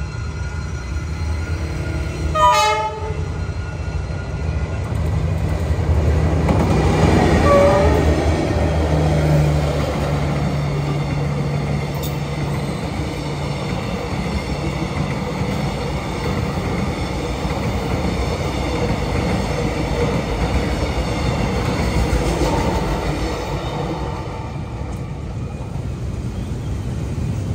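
Diesel-hauled passenger train passing close by, with a short horn blast about two and a half seconds in. The locomotive's engine drone builds and peaks as it goes past, then the coaches roll by with a steady clatter of wheels that eases near the end.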